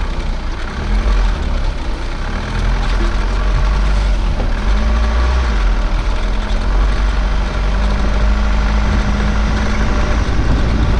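4x4 ute driving over a rough sandy dirt track, its engine running steadily under a heavy low rumble.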